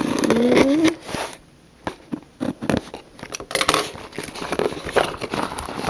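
Cardboard box being opened by hand: a loud scratchy tear of packing tape and cardboard in the first second, then irregular scraping, crackling and clicking as the flaps and contents are handled.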